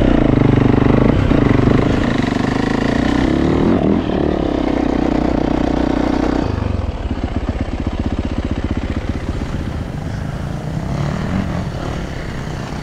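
Dirt bike engine heard up close, its pitch rising and falling as the throttle is worked on a steep climb. About halfway through the sound drops to a quieter, steady, fast-pulsing engine drone.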